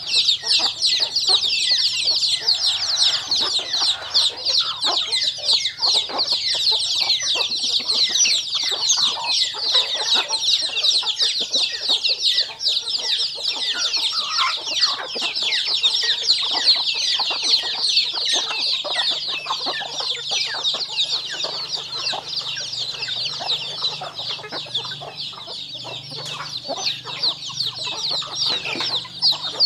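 A flock of chickens: a constant chorus of high, rapid chick peeping with hens clucking through it.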